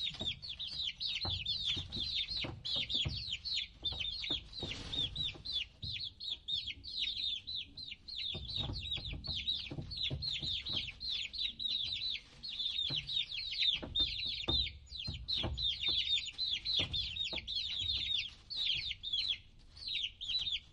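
A group of baby chicks peeping continuously, many high, short, downward-sliding chirps overlapping, with occasional soft low knocks.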